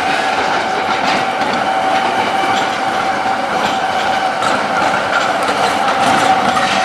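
Tram running along its rails, a steady rolling noise with a high tone held throughout.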